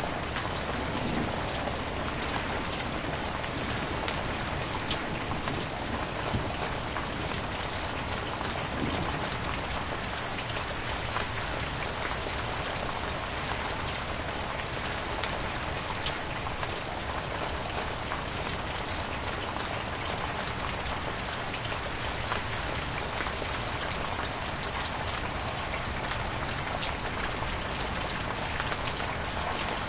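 Heavy rain falling steadily: an even, unbroken hiss with scattered sharper hits of individual drops.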